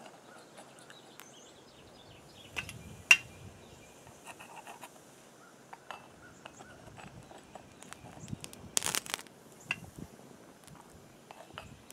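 Scattered small clicks and scrapes of a metal tool working in a cast-iron pot of molten lead, skimming off the dross. There is one sharp metallic tap about three seconds in and a short scraping rush near nine seconds.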